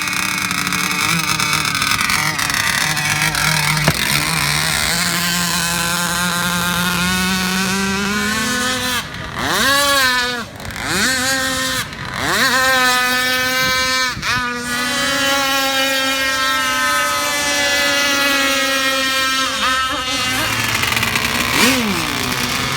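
RC speed boat's motor running at high revs: the pitch climbs steadily, swoops down and back up several times in quick succession about nine to fifteen seconds in, then holds high and steady.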